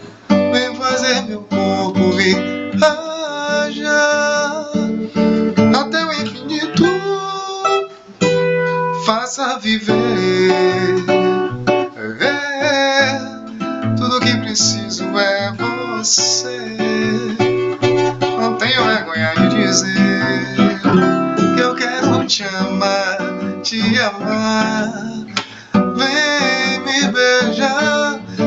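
A song with a strummed acoustic guitar and a singing voice carrying the melody at times.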